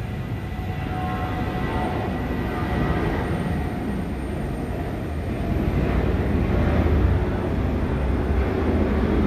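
Airport apron ambience: a steady low rumble of aircraft and ground equipment, with a faint steady whine above it, growing louder about six seconds in.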